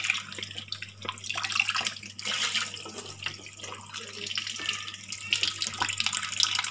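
Kitchen tap running and splashing onto a ceramic plate in a stainless steel sink as hands rub and rinse small mahkota dewa fruits, with many small clicks and knocks through the water.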